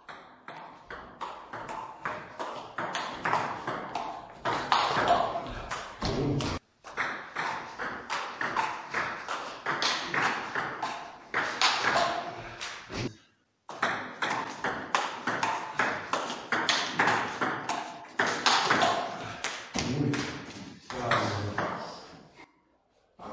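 Table tennis rallies: the ball ticking sharply back and forth off the paddles and the table in quick runs, broken twice by brief silences.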